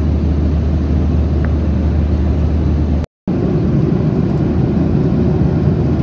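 Steady jet airliner cabin noise in flight: a constant drone of the engines and rushing air, heard from inside the cabin. It drops out for a split second about halfway through, then comes back with a slightly fuller rumble.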